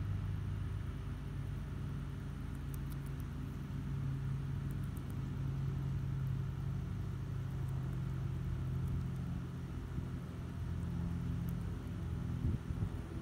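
A motor running steadily in the background, a low hum that wavers slightly in pitch, like an idling engine. A few faint high clicks sound a few seconds in.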